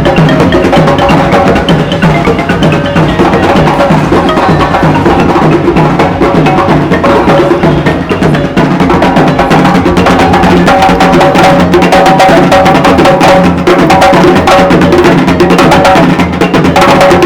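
Music with sustained instrumental tones over a busy, steady percussion beat with wood-block-like clicks.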